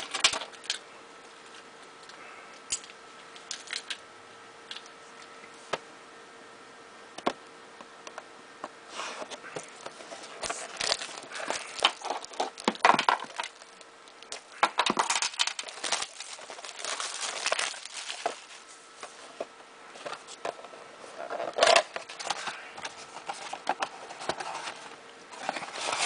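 Clear plastic shrink-wrap being worked off a cardboard trading-card box. Scattered clicks at first, then repeated bouts of crinkling and crackling plastic.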